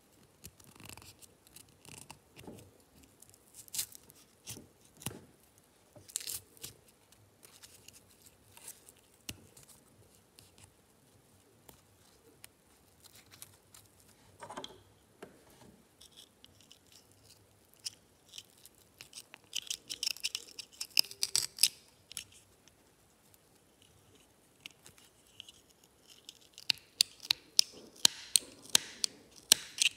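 Close-up handling of a sequined embroidered petal and its thread-wrapped wire stem: soft rubbing and scattered small clicks, with a burst of crisp clicks about two-thirds of the way through. Near the end, a quick run of sharp snips from small scissors trimming thread and stuffing at the petal's edge.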